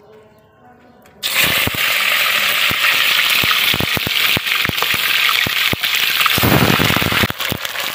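Thin beef steaks laid into hot oil in a glazed clay cazuela start a sudden loud sizzle about a second in, which carries on with sharp crackling and spitting pops as more meat goes in.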